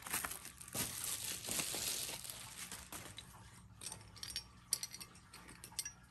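Bubble wrap crinkling as it is crumpled and pulled open by hand for about three seconds, then a few light clicks of small toy parts being set down.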